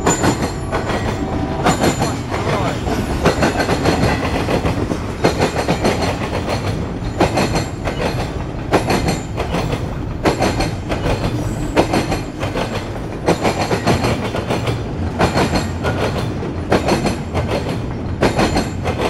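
Norfolk Southern intermodal train's container well cars rolling past: a steady rumble of wheels on rail, with pairs of clicks about every second and a half as the wheels cross rail joints.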